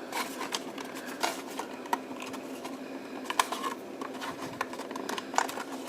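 Hands handling plastic drone accessories and their packaging: scattered light clicks, taps and rubbing at an irregular pace.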